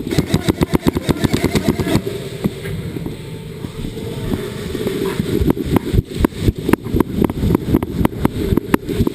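Airsoft gun firing rapid bursts, a fast run of about ten shots a second for the first two seconds, then more bursts from about five and a half seconds in.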